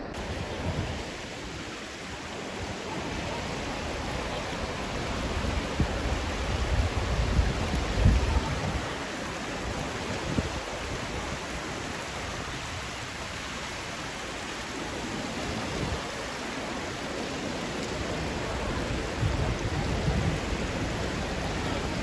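Steady rush of a fast-flowing creek running high, with louder low rumbles from about six to eight seconds in and again near the end.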